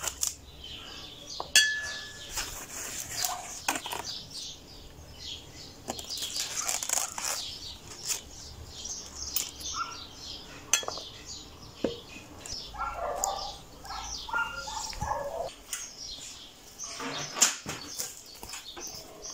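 Birds singing and chirping throughout, with sharp clinks and knocks of glass and small utensils being handled, loudest about a second and a half in.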